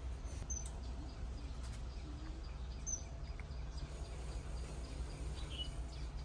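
Outdoor ambience: a steady low rumble with a few brief, high bird chirps, three in all.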